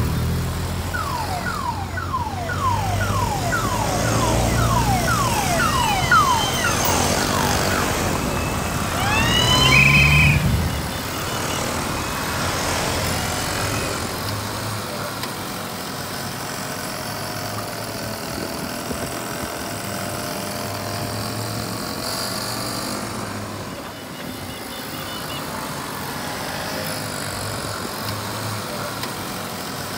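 VéloSoleX mopeds' small two-stroke engines running as they ride past. Over them a siren-like tone sweeps down again and again, about two times a second, for several seconds, followed by a short horn-like call about ten seconds in.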